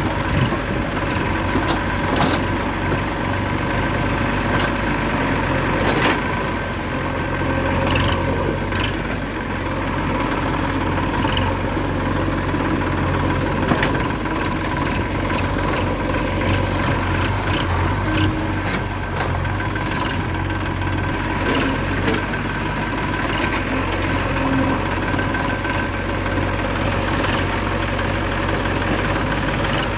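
A small engine running steadily, with scattered clicks and knocks over the drone; it is most likely the motor of a homemade mini backhoe loader.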